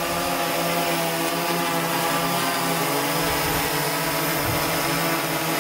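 Electric motor and propeller of an RC model aircraft running at steady throttle: a steady, even-pitched buzzing hum.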